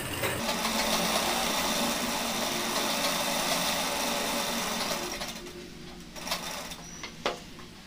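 Sewing machine running steadily as it stitches a double-folded fabric hem. It stops about five seconds in, followed by a few light clicks.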